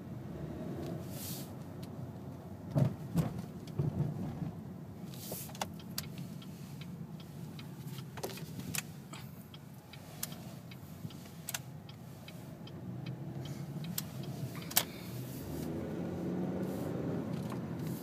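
2012 Chevy Malibu LT heard from inside the cabin while driving slowly at low revs: a steady low engine and road hum. Scattered light clicks run over it, with a few louder knocks about three seconds in.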